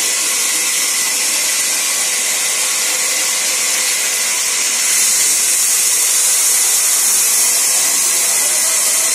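Sawmill band saw running with a steady high hiss, ripping a long thin plank. The sound grows a little louder about five seconds in as the plank is fed through the blade.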